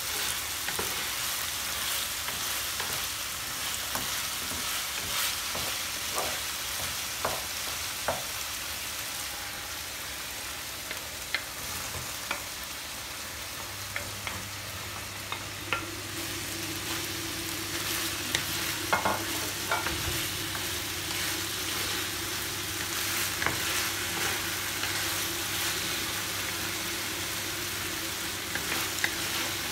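Diced chicken breast frying in a pan with a steady sizzle, stirred with a wooden spoon that scrapes and taps against the pan. Chopped mushrooms are tipped in about halfway through, and a low steady hum starts at the same time.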